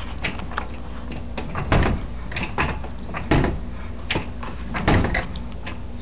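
Dishwasher's lower wire rack being pushed in and pulled out on its rails, rattling and knocking against its stops four times, about every second and a half, with lighter clicks between.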